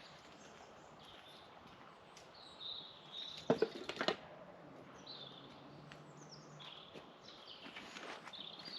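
Faint birdsong: short chirps and whistles from small birds over a low background hiss, with a few sharp knocks about three and a half seconds in.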